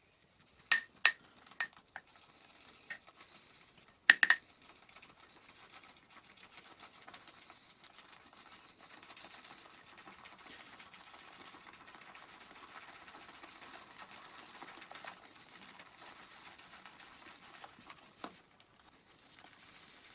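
Synthetic shaving brush whisking shaving cream into a lather in a bowl: a soft, steady swishing. A few sharp knocks come in the first few seconds and one more near the end, louder than the whisking.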